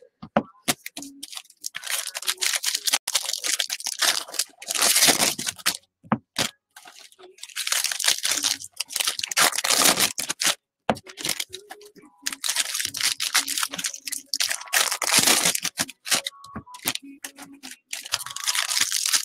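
Foil trading-card pack wrappers being torn open and crinkled, with cards rustling, in repeated bursts broken by a couple of short silent gaps.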